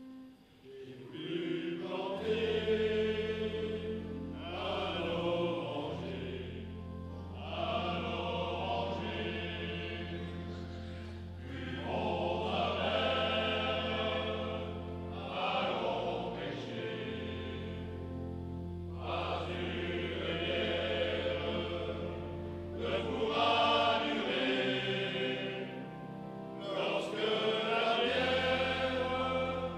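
Male choir singing in a stone church, in phrases of a few seconds each with short breaks between them. A low note is held beneath most phrases.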